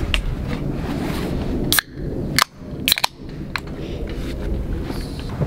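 Aluminium beer cans being opened: three sharp pull-tab cracks between about two and three seconds in, over a steady low rumble.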